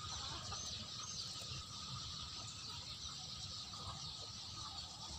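Quiet garden ambience: a steady high insect drone with a couple of faint bird chirps about half a second and a second in.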